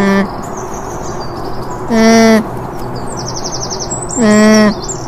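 Alpaca humming: short steady-pitched hums about half a second long, one about two seconds in and another near the end, with the tail of one at the very start. Small birds chirp steadily throughout.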